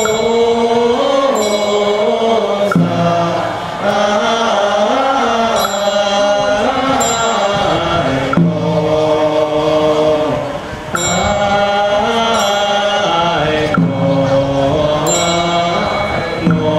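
Buddhist monks chanting a slow melodic liturgical chant through a microphone, long held notes stepping up and down in pitch.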